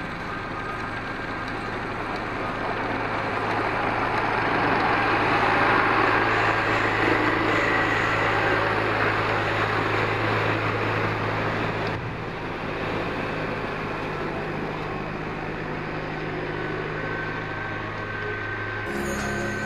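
Snow groomer's engine running steadily with a constant low hum, its tracks and rear tiller churning snow. It grows louder as the machine passes close midway, then drops back a little.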